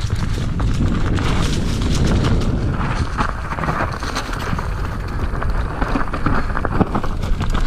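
Electric mountain bike rolling down a leaf-covered dirt trail: a steady low rumble of wind and tyre on the mount-camera microphone, with constant clicks and rattles from the bike over bumps.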